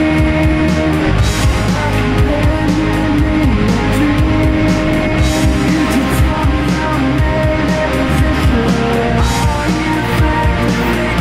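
Loud rock music with distorted electric guitar, bass and drums, with a steady beat.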